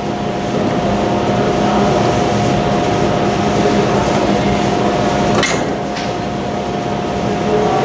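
Steady humming background noise with a constant tone, broken by one sharp click about five and a half seconds in.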